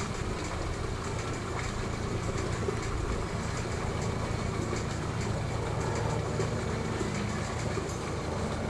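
Steady low machine hum, unchanging in level.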